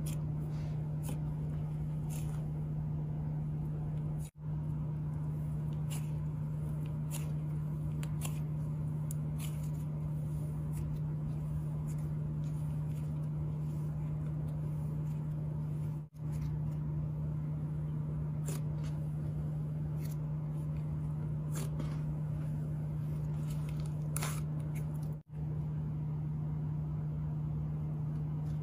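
A steady low hum runs throughout, with scattered faint crisp clicks and crackles from fluffy cloud slime being poked and stretched. The sound cuts out briefly three times.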